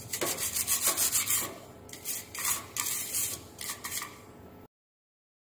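Stiff brush scrubbing a circuit board wet with isopropyl alcohol, cleaning the solder pads. It starts with a quick run of back-and-forth strokes, then slower single strokes about two or three a second, and cuts off suddenly near the end.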